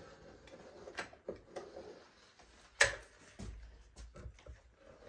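Caulk gun worked along a window frame: scattered clicks and knocks as the gun is squeezed and moved, with one sharp click about three seconds in.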